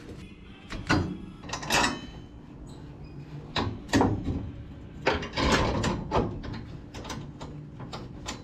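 Metal clanks and knocks as a tack-welded metal roof jig is positioned and bolted onto a car's body, with a few single sharp knocks and a busier stretch of rattling about five seconds in.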